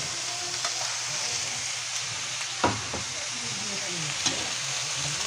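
Chopped lechon (roast pork) sizzling as it fries in a wok, a steady hiss with a few sharp clicks, the loudest about two and a half seconds in.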